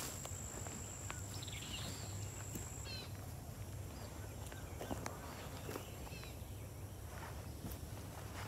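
Footsteps through brush and leaf litter, with scattered light snaps and rustles. A small bird chirps a few times in quick runs early on. A thin, steady high-pitched tone fades about three seconds in.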